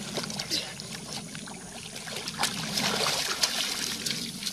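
Water splashing and sloshing with irregular small splashes as a dog and a boy swim through shallow river water to the bank.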